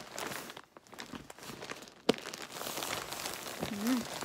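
Plastic wrapping and packing tape crinkling and rustling as a taped package is worked open by hand, with one sharp knock about two seconds in.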